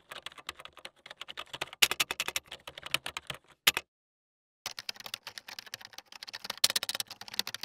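Rapid keyboard typing clicks, a sound effect for text appearing letter by letter. They stop for under a second about halfway through, then start again.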